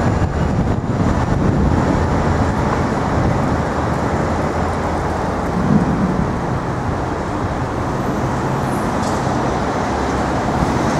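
Steady city street traffic noise: a continuous rumble of road vehicles with no single sound standing out.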